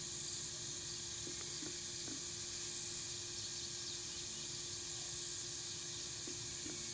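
Steady summer field ambience: a high insect drone over hiss, with a faint steady low hum. A few faint clicks come in short runs of three, about a second in and again near the end.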